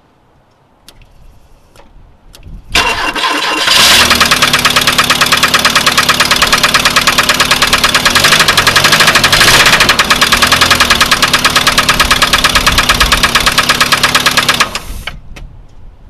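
1992 VW Cabriolet's 1.8-litre SOHC four-cylinder engine, run with all accessory belts removed, starting about three seconds in and running with a fast, even knocking pulse, then stopping near the end. The owner cannot place the knock; one cylinder reads 125 psi compression against 150 psi on the other three.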